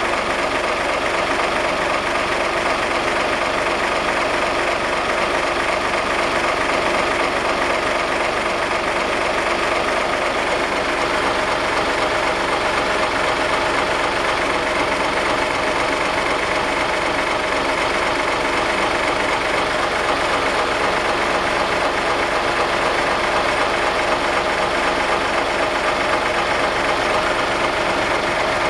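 Yanmar inboard marine diesel engine idling steadily, heard close up in the boat's engine compartment.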